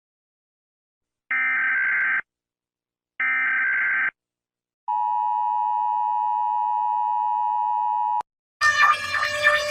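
Emergency Alert System broadcast alarm: two short screeching bursts of digital header data a second apart, then the steady two-tone attention signal held for about three seconds, which cuts off abruptly. Near the end a different, louder pulsing alarm begins.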